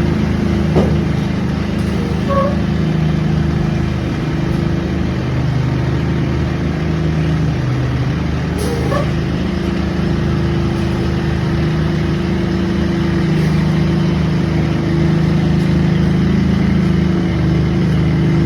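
An engine running steadily at a constant speed, with a few short squeaks over it.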